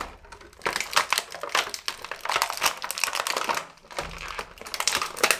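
Action-figure packaging crinkling and crackling in irregular bursts as the figure is pulled out of its box, with a short lull about two thirds of the way through.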